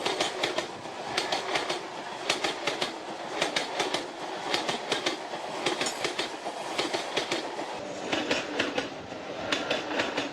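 Train rolling past over rail joints, with a steady rumble and repeated clickety-clack clusters of wheel clicks about once a second.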